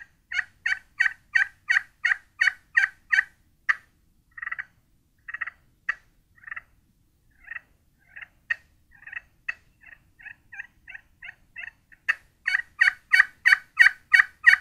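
Slate-surface pot call with a ceramic bottom, scratched with a striker to imitate hen turkey yelps. Short, fairly high-pitched notes come about three a second. Loud runs open and close the sequence, with softer, more widely spaced notes in the middle.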